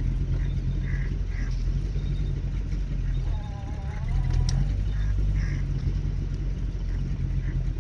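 Small boat's motor running steadily at low speed, with a few short high calls over it and one longer wavering call a little past halfway.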